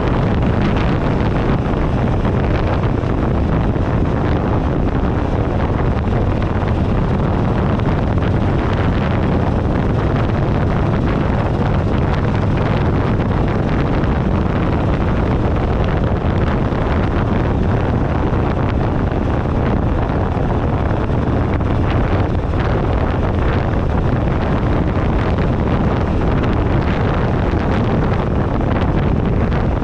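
Wind buffeting the microphone of a handlebar-mounted action camera on a moving motorcycle, a steady loud rush, mixed with the running of the 2008 Buell Ulysses XB12XT's V-twin engine and road noise.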